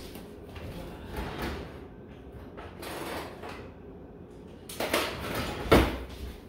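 Rummaging and handling noises, things being moved and shuffled about, with a louder burst of rustling about five seconds in and a sharp clack just before the end.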